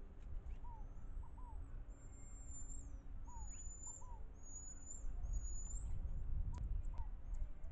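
Animal calls at a feeder visited by birds and marmosets: a run of high, thin whistles with sliding ends, and short lower notes in pairs about every second and a half, over a low rumble.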